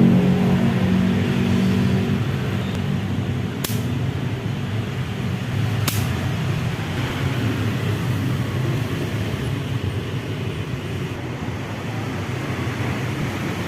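Toyota Kijang Krista 2.0-litre engine running, its revs settling in the first couple of seconds and then idling steadily. Two sharp clicks sound about three and a half and six seconds in.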